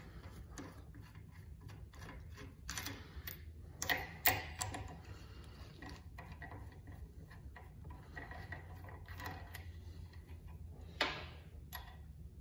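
Hand work on a 6.0 Powerstroke oil rail held in a vise: small metal parts clicking and knocking as O-rings and oil cups are fitted, a few sharper knocks around three to four seconds in and another near the end, over a steady low hum.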